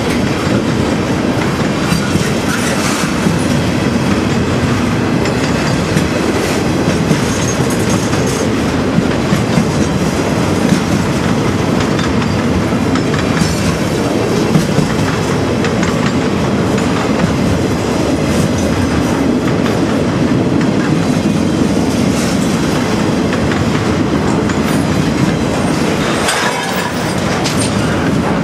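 Railcars of a long train, flatcars loaded with trailers, rolling past close by: a steady rumble of wheels on rail with scattered clicks as the wheels cross rail joints.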